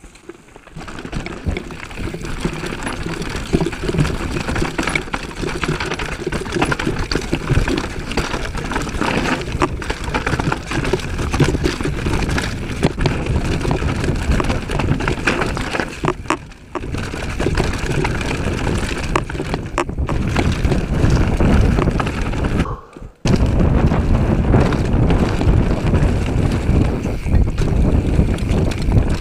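Downhill mountain bike at speed on a rough dirt and rock trail: a constant rumble of tyres over the ground with frequent sharp knocks and rattles from the bike as it hits bumps. The sound drops away briefly twice in the second half.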